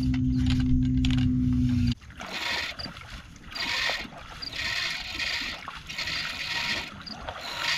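A steady low hum cuts off sharply about two seconds in. Then oars splash in the water in a steady rhythm, about one stroke a second, with light knocks between strokes, as a boat is rowed.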